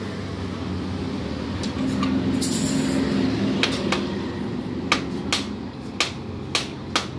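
Sharp knocks, about eight, spaced irregularly, as the cap is fitted back onto a Yamaha Mio exhaust muffler, over a steady low engine-like hum.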